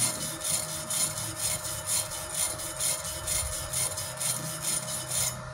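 Steel wire brush scrubbing a fresh flux-cored (gasless MIG) weld bead on steel, in quick back-and-forth strokes of about four a second, scraping off the slag and spatter.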